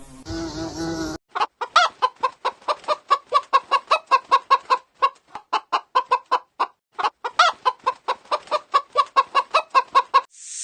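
A chicken clucking in a rapid, steady series of short calls, about four a second, with a few louder, rising squawks mixed in; the calls stop suddenly near the end. A brief buzzing drone comes before them, in the first second.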